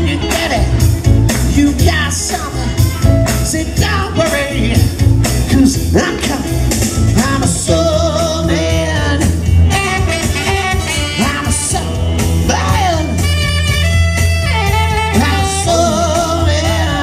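Live blues-rock music through an outdoor PA system: a heavy, steady backing beat with male vocals sung into microphones, the singing growing stronger about halfway through.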